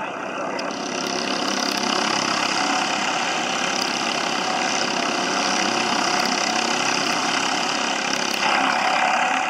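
Several go-kart engines running together as a pack of karts comes down the track, the sound growing louder about a second in and loudest near the end as they draw close.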